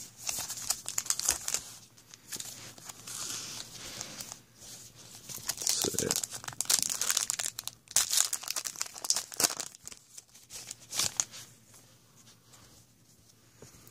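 Topps Magic trading-card pack wrappers crinkling and tearing as the packs are handled and ripped open by hand, in irregular crackly bursts that die down near the end.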